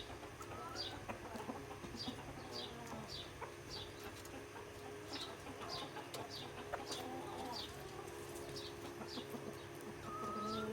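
Chickens clucking and calling, with short, high, falling peeps repeating about twice a second, and a louder drawn-out call near the end.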